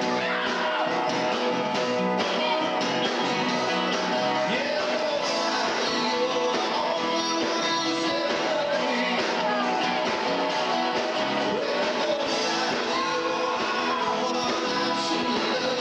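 Rock band playing live: guitars with drums, and a voice singing at times.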